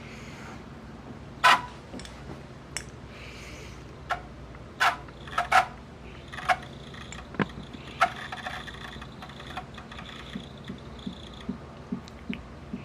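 Mechanical clicks and clunks from a Pioneer CT-W840R cassette deck, about a dozen sharp ones of varying loudness, the loudest about a second and a half in and around five seconds in. A faint high whine runs from about six to eleven seconds in, and soft low ticks come near the end.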